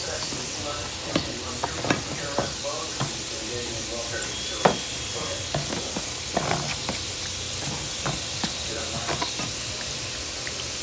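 Hot oil sizzling steadily around Jamaican fried dumplings (Johnny cakes) shallow-frying in a pan, with scattered sharp pops and crackles.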